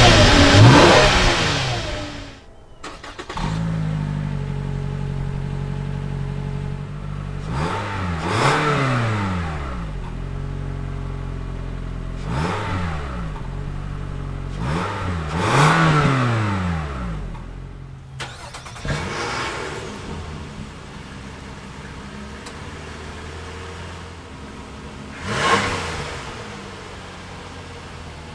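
Car exhausts recorded at the tailpipe, one after another. A Lexus GS sedan's engine falls back from a rev and cuts off about two seconds in. Next, a Toyota Camry SE's four-cylinder idles and is blipped three times, each rev rising and falling. Last, an Infiniti crossover idles and is revved twice.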